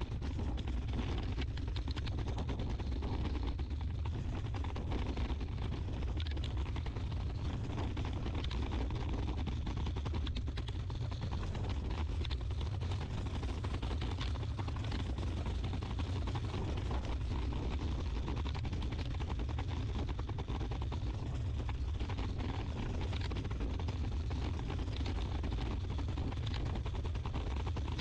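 Steady low outdoor rumble with a faint hiss, with no distinct events.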